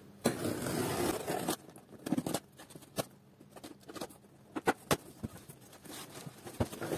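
Tape or a tear strip ripped off a cardboard box in one rough stretch about a second long. A box cutter then scrapes along the cardboard, with scattered sharp clicks and knocks as the flap is lifted open.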